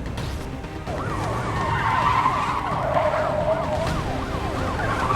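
Police car siren in a fast rising-and-falling yelp, starting about a second in, over car engine noise. In the middle, tyres screech for a second or two.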